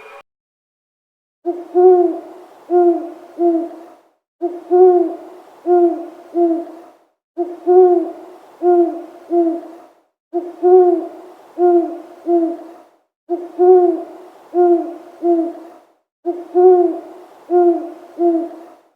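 An owl hooting: six phrases about three seconds apart, each a brief soft note followed by three low hoots, the first one longest, with silence between phrases.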